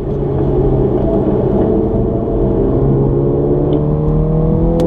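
Mini's engine heard from inside the cabin, pulling steadily under acceleration, its pitch slowly rising. A short click comes near the end.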